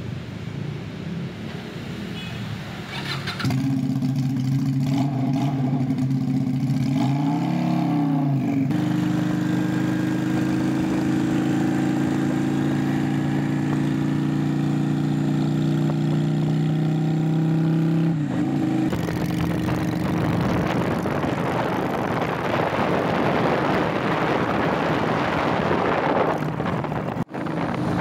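A custom bobber's 250cc two-cylinder V-engine from an SM V16 runs while the bike is ridden, holding a steady note with a brief dip and rise in pitch about eight seconds in. From about eighteen seconds an even rushing noise takes over.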